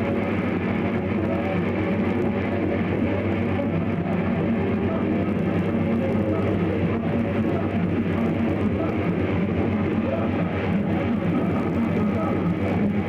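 Rock band playing live: electric guitar and bass in a dense, steady wall of sound with no breaks. It is captured through a camcorder's own microphone, so it sounds dull and short of treble.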